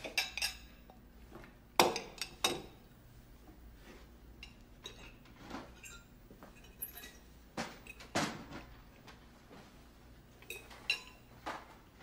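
Forks and plates clinking as people eat: scattered sharp clinks and knocks of cutlery on china every second or two, with a quiet room between them.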